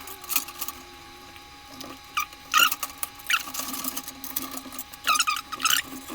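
Hand-handling noises inside a computer case: short squeaky plastic scrapes and clicks as cables and parts are moved about, in several bursts with a longer run near the end, over a faint steady hum.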